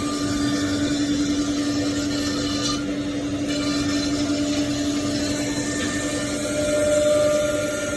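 Single-head SangLong CNC router's spindle running with a steady whine as it cuts across the machine's table to face it flat.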